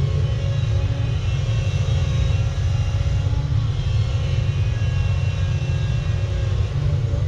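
Diesel engine of heavy earthmoving equipment running steadily under work, with a deep, constant low rumble.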